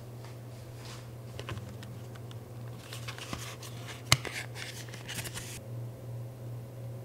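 Handling noise from a small cardboard butter box being turned over and opened: light rustles and taps, with one sharp click a little after four seconds. A low steady hum runs underneath.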